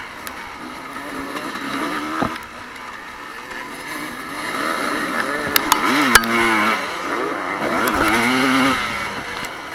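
Evolution-era motocross bikes racing, engines revving up and falling back as they accelerate and shift, loudest a little after halfway. A few sharp clicks come in the middle of the loudest part.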